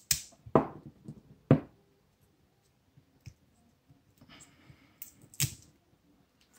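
Sharp clicks and knocks of 18650 lithium-ion cells being handled and stood upright on a tabletop, the loudest about half a second and one and a half seconds in and again about five and a half seconds in, with a brief rustle just before the last.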